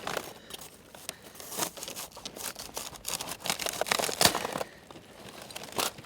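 Crisp leaves of a large napa cabbage rustling, crackling and snapping as the head is handled, in irregular bursts.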